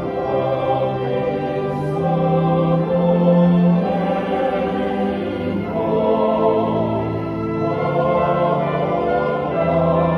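A choir singing a hymn in sustained chords, accompanied by an instrumental ensemble.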